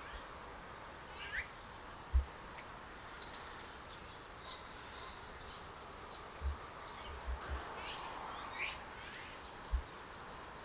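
Outdoor ambience: small birds chirping in many short, high notes over a steady background hum, with a few soft low thumps.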